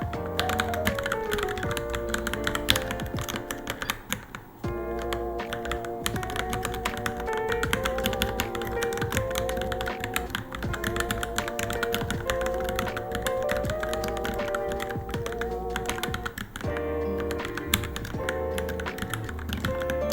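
Steady rapid typing on a Varmilo Minilo mechanical keyboard, a continuous stream of key clicks, over background music that briefly drops out a few seconds in.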